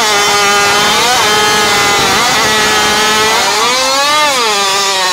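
Modified two-stroke racing chainsaw of up to 81cc with an expansion-chamber pipe, running flat out and cutting through a log. The pitch holds steady under load, then rises and falls again about four seconds in.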